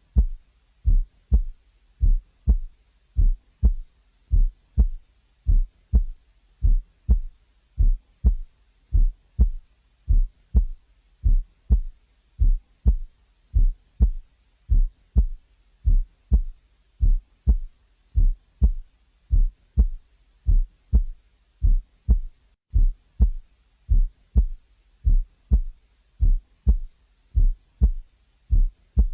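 Recorded heart sounds: short, low-pitched sounds repeating in a steady, regular rhythm, about two a second, with quiet between them.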